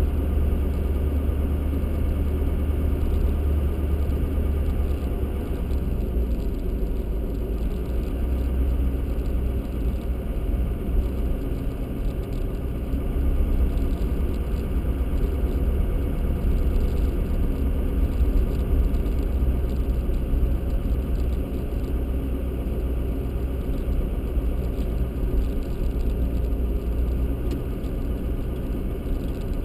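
A car driving at low speed on a snow-covered road, heard from inside the cabin: a steady low engine and road rumble.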